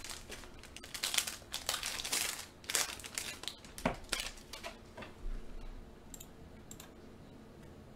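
Foil wrappers of trading-card packs being handled and torn open, crinkling in bursts for about five seconds, followed by a couple of faint clicks.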